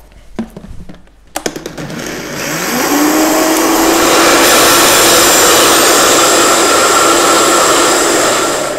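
High-powered countertop blender: a few clicks as the lid and tamper are fitted, then the motor starts about a second and a half in, rises in pitch as it comes up to speed, and runs loud and steady, blending ice, almond milk and avocado into a smoothie. It begins to die away near the end.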